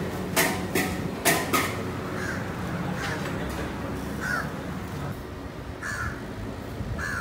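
Four sharp clacks in the first couple of seconds, then crows cawing, short single caws every second or so.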